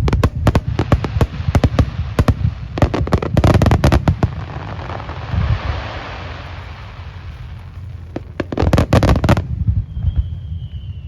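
Aerial fireworks going off in rapid volleys of sharp bangs. A crackling hiss swells and fades in the middle, another quick volley of bangs follows, and near the end a thin whistle slides down in pitch.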